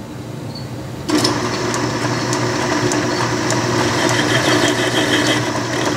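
Logan metal lathe starting up about a second in, its spindle and three-jaw chuck then running steadily with a machine hum and a light tick about twice a second.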